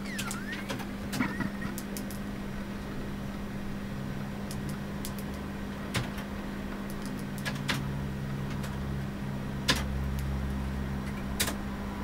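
Steady low hum with scattered sharp clicks, and a few short sweeping chirps from a young green budgerigar in the first second or two.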